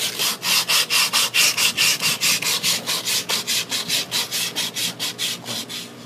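Sandpaper rubbed rapidly back and forth by hand over a rusty metal filter drier on an air conditioner's refrigerant line, about five rasping strokes a second, getting lighter near the end. The rust is being sanded down to bare metal before the drier is painted.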